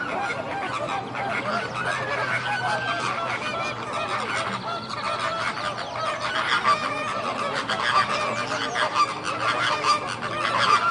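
A large flock of birds calling continuously, many short overlapping calls at once with no break.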